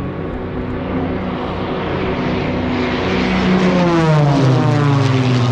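Engines of a formation of small aerobatic display planes flying overhead, droning louder as they approach. In the second half the pitch slides down as they pass over and move away.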